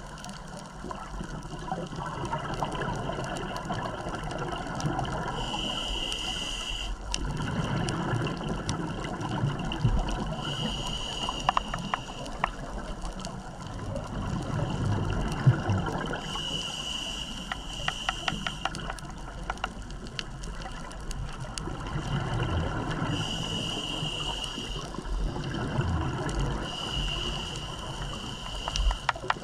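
Scuba diver breathing through a regulator underwater: a short hissing inhale followed by a longer rush of exhaled bubbles, repeating about every five to six seconds, with a few faint clicks.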